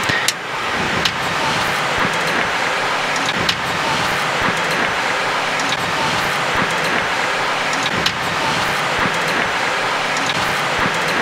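Steady cockpit noise of a Boeing 737 taxiing on a wet surface just after landing, with a few faint scattered clicks.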